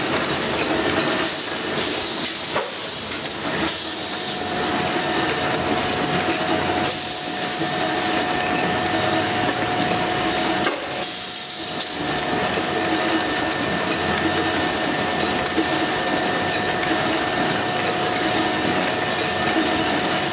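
Semi-automatic aerosol can filling line running steadily, with bursts of hissing about every three seconds in the first half and a steady hum of tones underneath.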